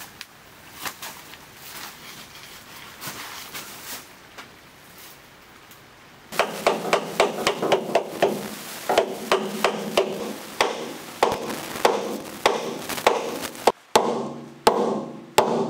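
A hammer striking the end of a cutlass bearing to drive it into a boat's steel shaft log. After a few light knocks, steady blows begin about six seconds in, about two a second, each leaving a short metallic ring.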